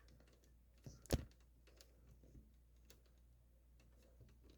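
Faint handling noises: scattered small clicks and taps, with one sharp knock about a second in.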